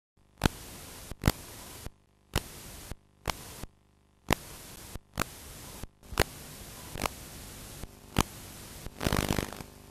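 VHS tape playback hiss and static that cuts in and out, broken by sharp clicks about once a second, with a louder crackling stretch near the end: typical noise at the start of an old videocassette.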